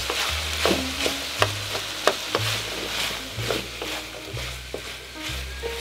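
Diced potatoes and pork sizzling in hot oil in a non-stick wok, stirred with a wooden spatula that scrapes and taps against the pan many times.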